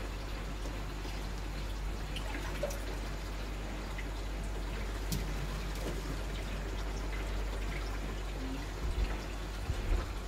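Aquarium water trickling and bubbling, from the air line and water circulation, over a steady low hum. A few soft low thumps near the end.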